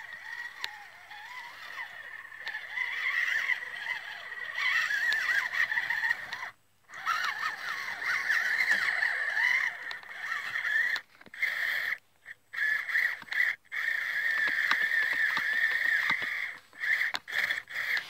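ECX Barrage Gen2 RC crawler's electric motor and gears whining as it pushes through deep snow, the pitch wavering with the throttle. The whine cuts off and restarts abruptly several times in the second half.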